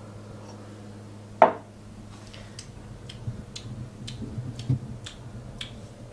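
Kitchenware being handled on a counter: one sharp knock about a second and a half in, then a run of light clicks and taps, over a steady low hum.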